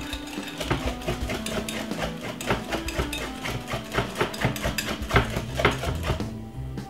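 Wire whisk beating thick chocolate pancake batter in a glass bowl, with quick irregular clicks of the wires against the glass, over background music.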